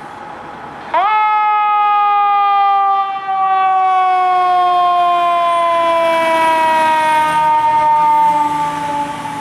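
Fire engine's mechanical siren spun up sharply about a second in, then winding down in one long, slowly falling wail.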